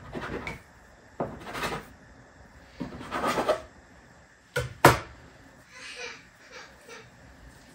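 Metal bench scraper scraping through bread dough and across a floured countertop three times, then two sharp knocks as the scraper is set down on the counter, followed by fainter sounds of the dough halves being handled.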